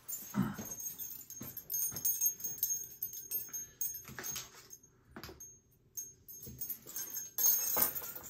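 Scattered knocks and handling noises as a person moves about and picks up spinnerbaits. Near the end come light metallic clinks of spinnerbait blades and hooks as the lures are laid into a plastic tackle box.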